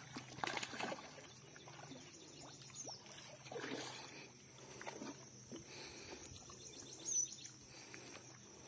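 A hooked rohu splashing and thrashing at the water's surface as it is drawn in to the bank on a fishing line, in irregular bursts. Near the end comes a short high-pitched chirp.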